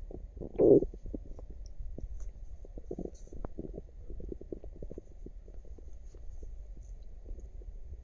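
Human stomach and bowels gurgling: one loud gurgle under a second in, then a run of small pops and gurgles.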